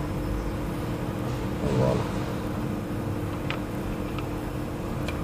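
A steady mechanical hum holding several low tones, with a brief spoken word and a couple of light clicks partway through.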